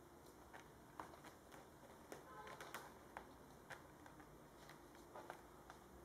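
Near silence with faint, scattered light clicks and scratches, about one or two a second: kittens' claws on a wooden floor and on denim jeans as they scramble around bare feet.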